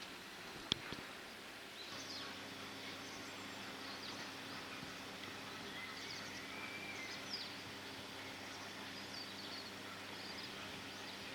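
Small birds chirping now and then over outdoor background noise. There is a single sharp click under a second in, and a low steady hum sets in about two seconds in.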